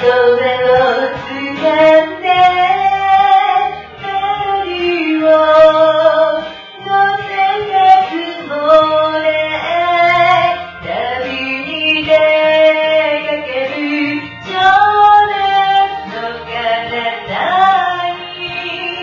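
A woman singing a Japanese ballad in Japanese over a karaoke backing track, her voice carrying the melody above the accompaniment.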